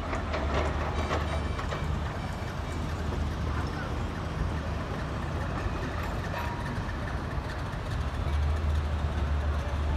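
Steady outdoor city noise: a continuous low engine drone from traffic and heavy machinery under a general hum, with a few light clicks in the first couple of seconds. The low drone grows louder near the end.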